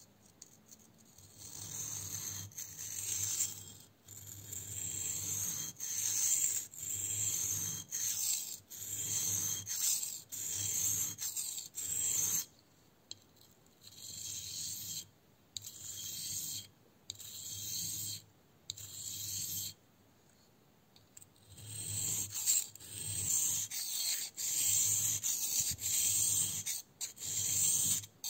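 Grafting knife's steel blade drawn in repeated strokes across a wet whetstone, a hissing rasp with each stroke at about one stroke a second, with two short pauses.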